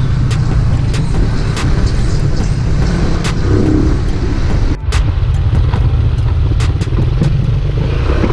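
Motorcycle engine running while riding along, with steady wind rush over the mic and scattered sharp clicks. The sound dips briefly and cuts about five seconds in.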